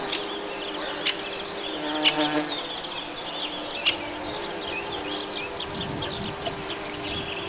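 Bumblebee buzzing with a steady hum as it works the flowers, the pitch of its buzz wavering about two seconds in as it moves. Birds twitter in the background, and there are a few sharp clicks.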